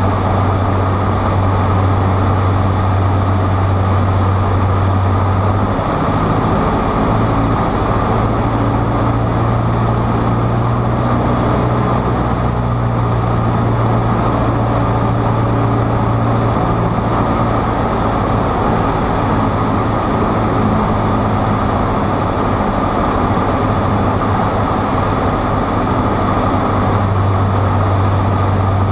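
Cessna 152's four-cylinder Lycoming O-235 engine and propeller droning steadily in flight, heard inside the cabin together with the rush of air, the low engine tone shifting slightly about six seconds in and settling back near the end.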